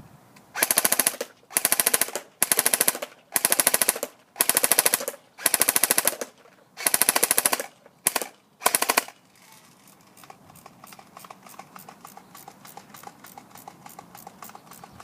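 SRC G36C airsoft electric gun firing on full auto in nine short bursts of rapid shots, each under a second long, then stopping. Faint rapid clicking follows.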